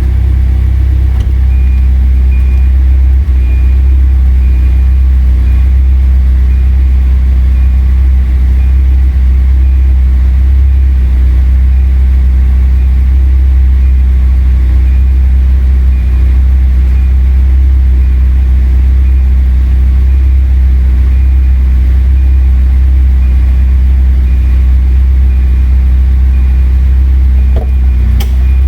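Volvo station wagon being driven at a steady speed: a loud, even, low engine and road drone that hardly changes.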